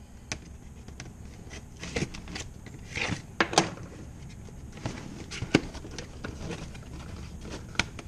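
Cardboard box being opened by hand: scattered clicks, taps and scrapes as a folding knife works at the box and the cardboard is handled on a wooden bench.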